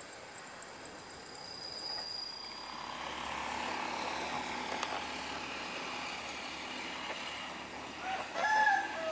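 A rooster crows near the end: a short rising call that holds, then starts to fall. Under it runs a steady rumble that swells a few seconds in.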